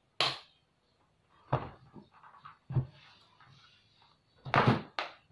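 About five sharp plastic clacks and knocks as a flat mop's metal handle is fitted into its plastic mop head and the mop is moved about on a table. The loudest knocks come just after the start and again in a quick pair near the end, with light rustling in between.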